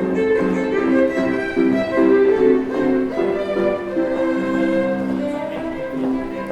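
Violin music: a bowed melody of quick, changing notes played without a break.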